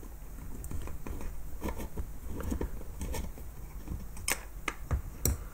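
A screwdriver turning small screws out of the metal back plate of an old aircraft instrument: light metal scraping and scattered small clicks, with a couple of sharper ticks after about four seconds as a screw comes free and is handled.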